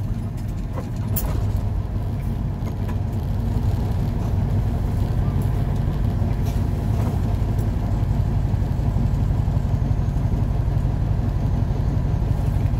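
Truck engine heard from inside the cab, a steady low rumble as the truck comes to a stop and idles at a red light. A few light clicks sound over it in the first few seconds.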